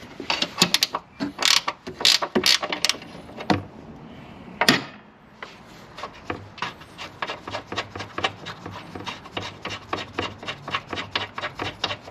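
Ratchet wrench working a loosened transmission mount bolt: a few scattered metal clicks and knocks, then from about halfway a steady, rapid clicking of about five to six clicks a second as the bolt is backed out.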